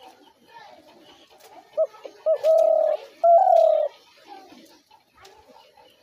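Spotted dove calling: two short notes, then two longer coos, about two seconds in.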